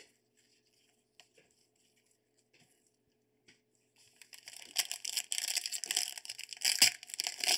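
A foil trading-card pack wrapper being torn open and crinkled by hand, starting about four seconds in after a few faint clicks of cards and box being handled.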